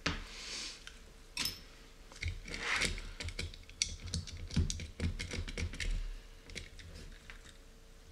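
Quick light clicking and clattering of the small anodized aluminium suspension parts of an RC car chassis as it is handled and its corners are pressed by hand, with one ringing metallic click about a second and a half in.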